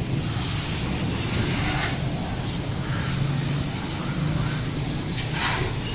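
A motorcycle being washed with a water spray: hissing spray coming and going, strongest near the end, over a steady low hum.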